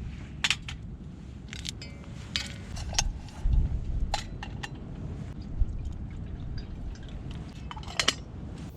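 Light clinks and taps of small camp cookware being handled, a dozen or so sharp ticks with a brief ringing note a couple of seconds in and a few dull knocks.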